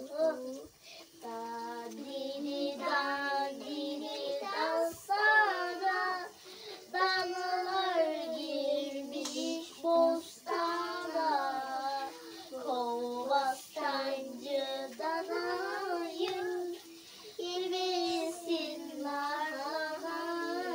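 A children's song with a child's singing voice over backing music, sung in short phrases with held notes.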